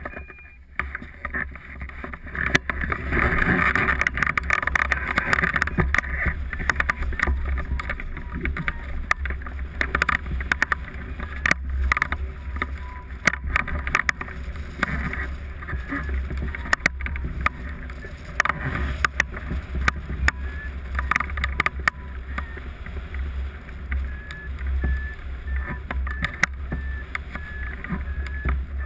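Wind rushing and buffeting over the microphone of a camera mounted on a hang glider at launch and in flight, a steady low rumble with frequent knocks, getting louder about three seconds in as the glider leaves the ground.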